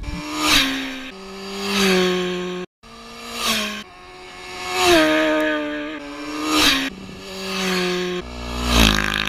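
Racing motorcycles going past at high revs, one after another, each one's engine swelling and fading as it passes. There is a very short gap in the sound just under three seconds in.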